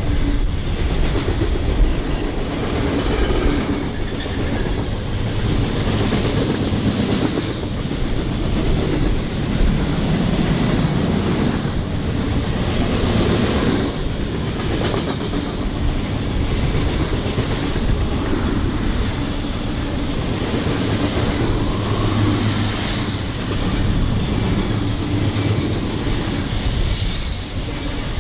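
A BNSF freight train's cars rolling past at speed, a steady loud rail noise with a thin high wheel squeal near the end.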